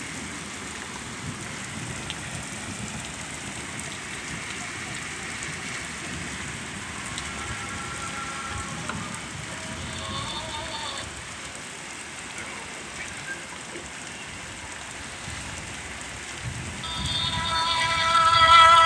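Steady rain falling. Faint music comes in briefly around the middle, and a song with singing starts and grows louder in the last two seconds.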